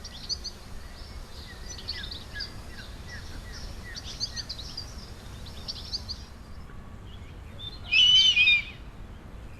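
Birds calling: a string of faint, quick high chirps for about six seconds, then one loud call with falling tones, lasting under a second, about eight seconds in.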